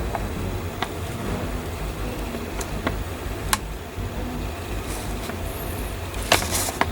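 Steady low background rumble with a few faint light clicks, and a short rustle about six seconds in.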